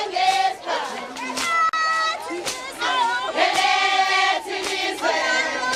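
A group of people singing together, with high voices holding and sliding between notes over a crowd.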